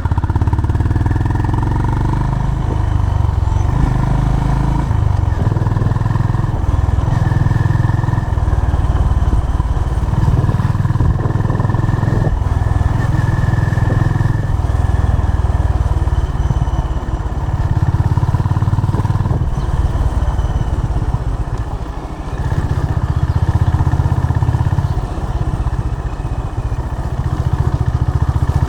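Honda CB350 RS's single-cylinder engine running, its exhaust note swelling and easing every few seconds.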